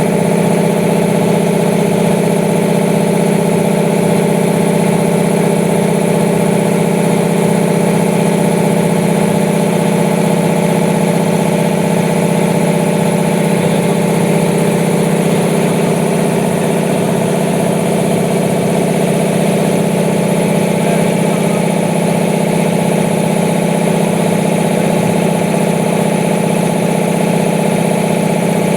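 15 HP base-mount industrial air compressor running steadily at a constant pitch, a loud even mechanical drone.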